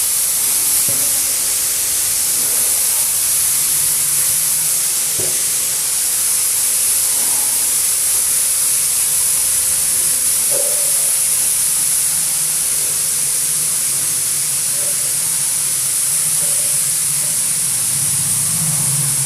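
Steady, loud hiss, strongest in the high treble, with a faint low hum beneath it: the constant background noise of the recording, with a few faint small knocks.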